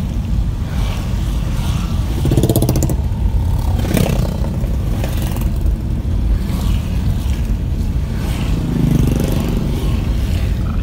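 Steady low rumble of a vehicle driving on a wet road, with motorcycle engines passing close by, one about two seconds in and another near the end. A brief knock comes about four seconds in.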